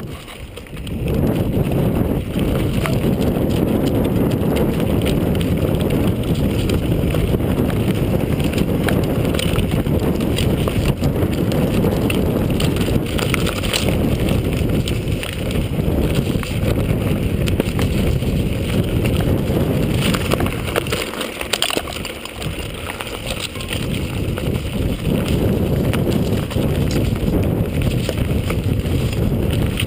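Wind rumbling on the camera microphone, with scattered footsteps on a rocky trail. The rumble eases briefly about two-thirds of the way in.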